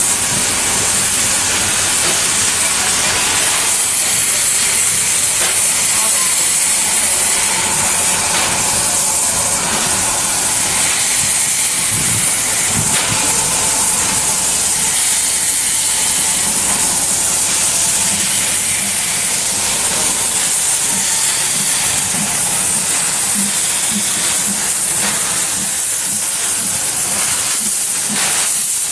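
Steam locomotive venting steam with a loud, steady hiss; in the second half a faint regular beat of low pulses comes in under it.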